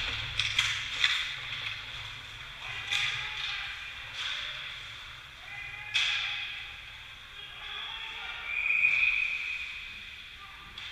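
Ice hockey play in an indoor rink: skate blades scraping on the ice, a sharp clack of stick on puck about six seconds in, and players calling out. About nine seconds in, a loud high-pitched sound lasting about a second stands out.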